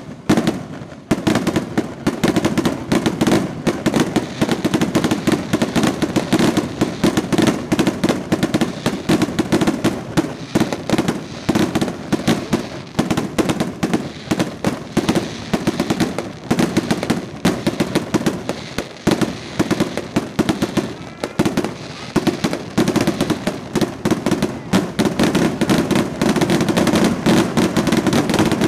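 Festival fireworks: a dense, unbroken barrage of rapid cracks and bangs from rockets and firecrackers, many to the second, getting a little louder near the end.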